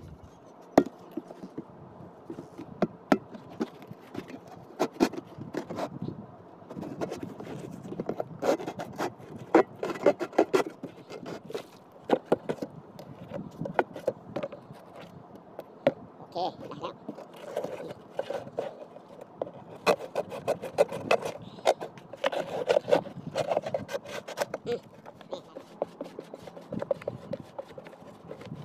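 A knife cutting a plastic jerry can: irregular scraping and sawing strokes mixed with many sharp clicks and knocks.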